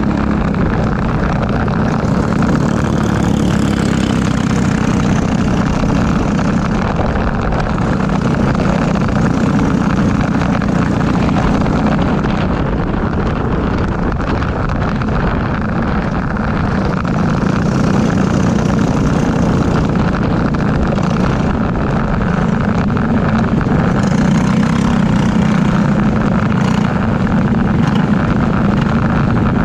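Briggs & Stratton LO206 single-cylinder four-stroke kart engine running under racing load, heard onboard. Its note swells and eases as the kart goes through the corners.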